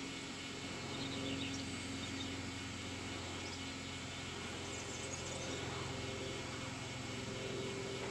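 Quiet outdoor ambience: a steady low hum with a few faint bird chirps, about a second in and again about five seconds in.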